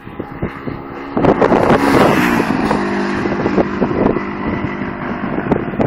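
Suzuki GS500 parallel-twin motorcycle passing at speed: the engine note builds as it approaches, drops in pitch as it goes by about two seconds in, then holds a steady lower note as it moves off. Wind buffets the microphone.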